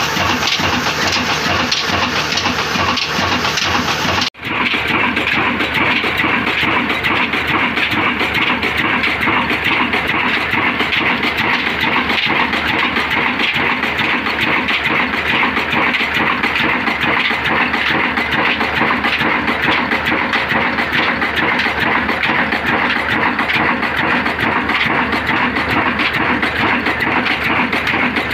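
Old Ruston Hornsby horizontal diesel engine running at a steady speed, its flywheels turning, with a fast, even beat. The sound drops out for an instant about four seconds in.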